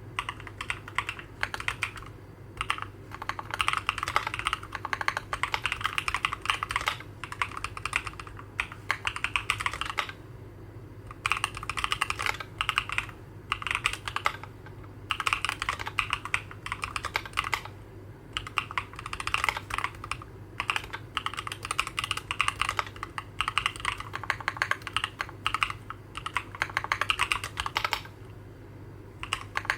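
Typing on a Keychron Q11 mechanical keyboard with Durock Black Lotus linear switches, ABS single-shot keycaps and sound-dampening mods: fast runs of light keystroke clacks broken by a few short pauses. A faint steady hum lies underneath.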